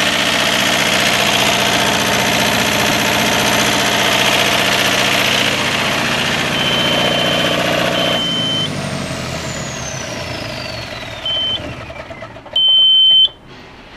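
John Deere 4024 turbocharged diesel of a 50 kW generator set running, then shut down about eight seconds in: the engine note dies away while the turbocharger's high whine falls steadily in pitch as it spins down. High electronic beeps sound several times, the loudest one near the end.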